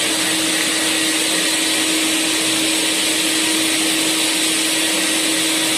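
Three-motor industrial vacuum cleaner running steadily: a constant hiss of rushing air with one steady hum underneath.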